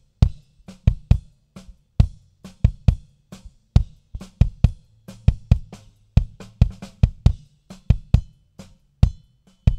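Recorded kick drum track of a smaller drum, gated, compressed and EQ'd on a Behringer X32 channel, playing a quick, uneven pattern of hits at about two to three a second. The low EQ band has been moved down to about 85 Hz and boosted for more fullness on the bottom end.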